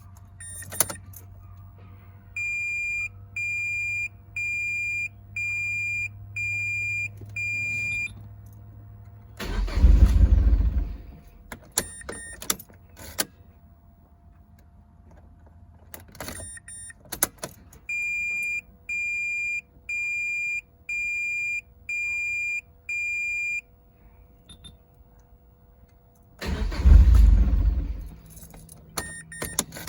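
Turbocharged NC Mazda Miata failing to start, twice over: keys click in the ignition, a dashboard chime beeps six times, then the starter cranks the engine for about a second and a half without it catching. A faint steady electrical hum runs underneath.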